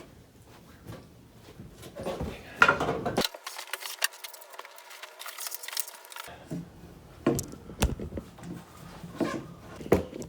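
Handling noise as objects are moved about on a desk: scattered knocks, clicks and rustles, the loudest knock about two and a half seconds in.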